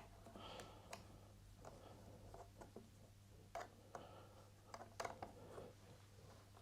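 Near silence with a faint steady low hum and a few light, scattered clicks and taps of metal parts being handled while a cut-off tool is lined up on a small lathe; the lathe is not cutting.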